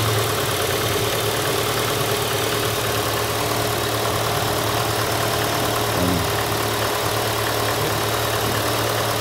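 Peugeot 306 engine idling steadily with the air conditioning on, a low even hum. The electric extra cooling fan, which should be running on low, is not running: its fuse holder has burnt.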